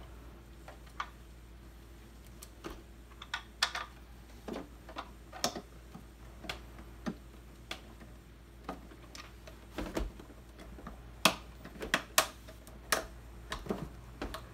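Irregular clicks and taps of hard plastic as the tight-fitting canopy of a Pro Boat Valvryn RC boat is worked and pressed onto its hull, with a few louder snaps in the last few seconds.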